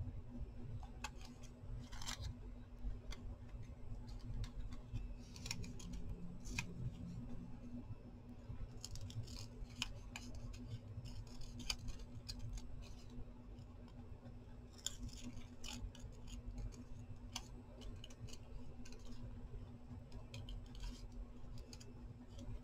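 Small scissors snipping paper in short, irregular cuts, over a steady low hum.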